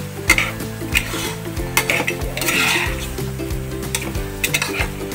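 Metal spoon stirring pork ribs and tomatoes in a non-stick wok, scraping and clicking against the pan several times, over the sizzle of the meat cooking.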